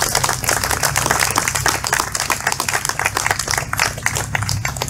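Audience applauding: many hands clapping in a dense, irregular patter that thins out and stops near the end.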